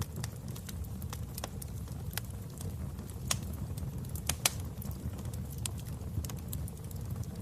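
Wood fire burning in a fireplace, with irregular sharp crackles and pops over a steady low rumble of the flames. The loudest pops come near the middle.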